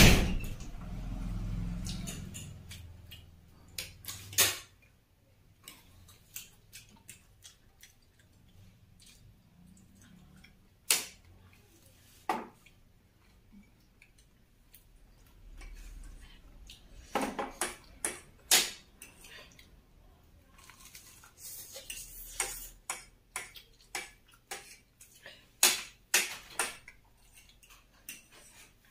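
Mukbang eating sounds: bites of bread pizza and a spoon clinking and scraping on plates, heard as scattered sharp clicks that come in clusters. A loud thump opens it, followed by a low rumble for a few seconds.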